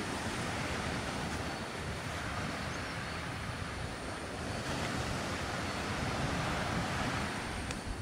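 Steady rushing of wind and surf breaking on the beach below, swelling slightly about halfway through.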